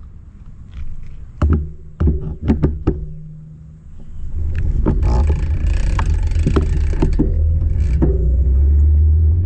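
Wind buffeting the microphone of a camera on a moving bicycle: a heavy low rumble that turns loud and steady about halfway through. Several sharp knocks and rattles come in the first few seconds.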